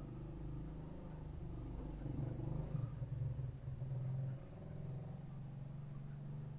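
Motorcycle tricycle engine running as it passes close by and pulls away: a steady low hum, loudest about two to four seconds in, then falling off.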